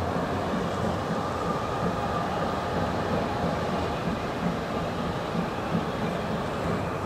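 Hunslet Austerity 0-6-0 saddle-tank steam locomotive working under steam at low speed, its exhaust giving slow, regular chuffs over the steady noise of the train.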